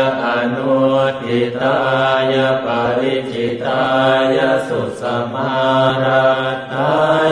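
A Buddhist monk chanting Pali in a single male voice, on a steady low monotone with long drawn-out syllables and short breaks between phrases.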